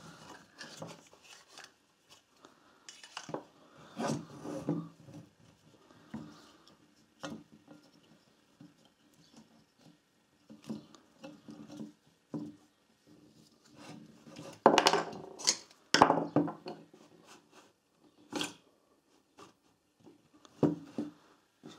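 Screwdriver work and handling of a recoil starter's plastic housing and small metal parts on a wooden table: scattered clicks, taps and short clattering knocks, loudest in a cluster about 15 seconds in.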